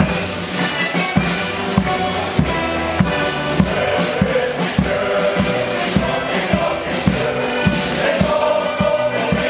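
Men's shanty choir singing together, backed by accordions and a bass drum beating a steady rhythm.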